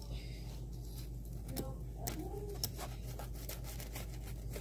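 Pizza cutter rolling through a quesadilla on a plate: quiet scraping with scattered light clicks that come more often in the second half, over a steady low hum.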